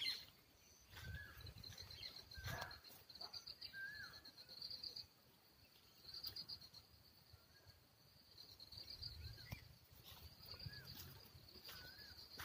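Insects trilling in a steady, high, pulsing buzz, while a bird repeats a short rising-and-falling call several times with a pause in the middle. Occasional faint low thumps from handling or footsteps.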